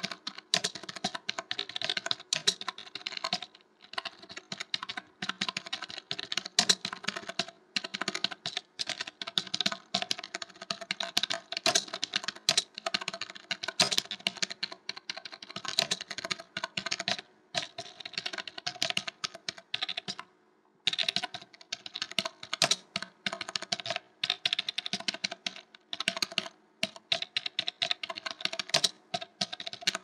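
Computer keyboard typed on rapidly: a dense stream of key clicks with a few brief pauses, the longest about two-thirds of the way through.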